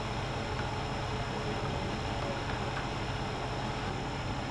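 Idling engine: a steady low hum.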